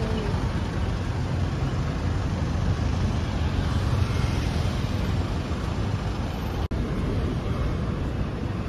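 Road traffic noise: a steady rumble of cars passing through a city intersection, with a momentary break a little before the end.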